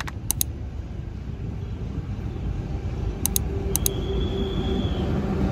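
Train running along the tracks, a low rumble that grows steadily louder as the locomotive approaches. A few sharp clicks come in pairs near the start and again about three seconds in.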